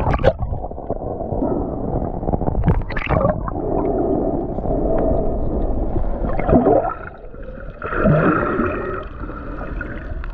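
Muffled water sloshing and gurgling around an action camera's microphone as it dips through the surface and moves underwater, with a couple of swooping gurgles in the second half.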